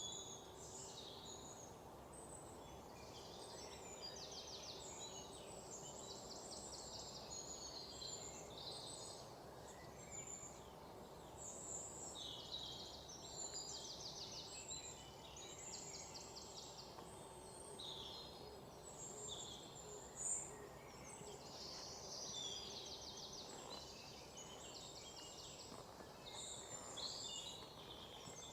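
Small birds chirping and trilling over and over, over a faint steady hum, with one sharp click about two-thirds of the way through.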